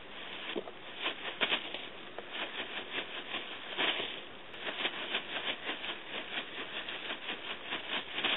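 Irregular scratchy rustling and crackles, several a second, from a white plastic-streamer cat wand being swished about while cats leap at it and scuffle on gravel.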